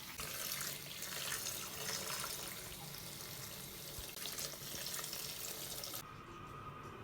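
Water in a sink as squishy fidget toys are washed by hand, a steady wash of water noise that stops about six seconds in.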